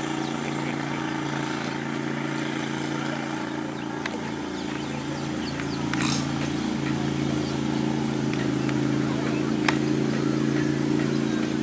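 An engine running steadily at an unchanging speed, a constant low hum, with a few faint sharp clicks scattered through it.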